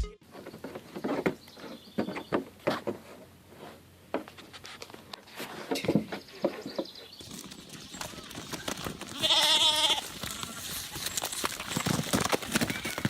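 A single loud, quavering bleat about nine seconds in, after several seconds of scattered light knocks and rustling.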